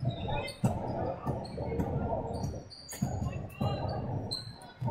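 Sounds of an indoor ball game echoing in a hall: a ball bouncing in repeated sharp knocks, short high squeaks, and indistinct voices.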